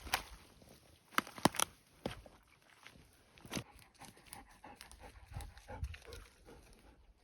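A dog close to the microphone, with a string of sharp clicks and knocks; the loudest come in a quick cluster about one and a half seconds in.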